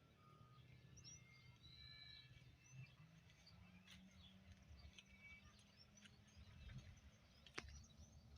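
Faint birdsong: scattered short chirps and brief whistled notes from small birds over a low rumble, with one sharp click near the end.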